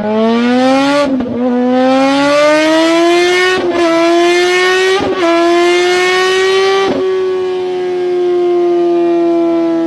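Race car engine sound effect accelerating up through the gears: the pitch climbs and drops back at each of four gear changes, then holds nearly steady.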